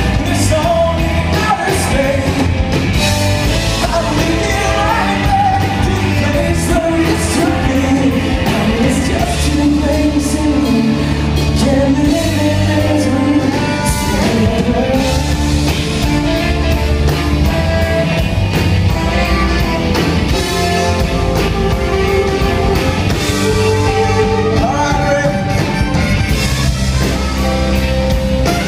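A rock band playing live: a singer over electric guitar, bass guitar, drums and keyboard, with trumpet and saxophone playing along.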